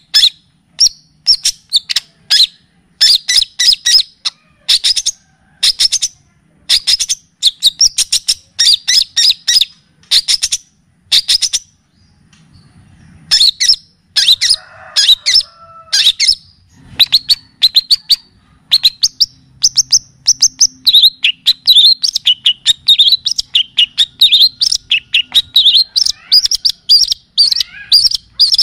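Recorded songbird song: rapid groups of short, sharp, high-pitched chirps repeated in phrases, with a brief pause about twelve seconds in, then a denser, faster run of notes through the second half.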